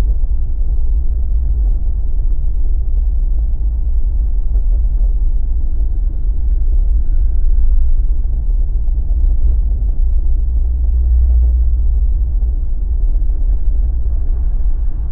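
Steady low road rumble of a Jeep driving along on BFGoodrich KO3 all-terrain tyres, tyre and drivetrain noise with no sudden changes.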